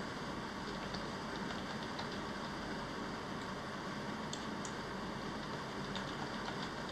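Scattered faint clicks of computer keyboard keys being pressed as a password is typed, over a steady hiss.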